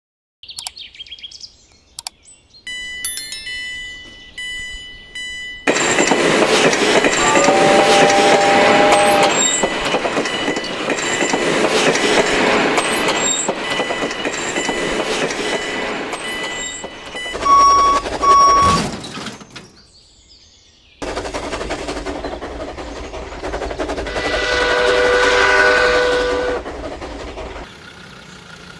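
A short logo chime, then steam train sound: a loud rushing running noise with a two-note whistle blown about eight seconds in and two short whistle toots near eighteen seconds. After a brief lull, the running noise returns with another long whistle around twenty-five seconds.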